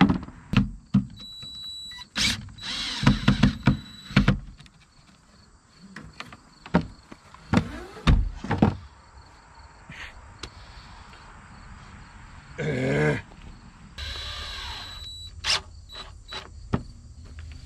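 Plywood coop door and boards knocking and scraping, with many sharp wooden clicks. Later a DeWalt cordless drill whirs in two short runs, driving a screw into the plywood.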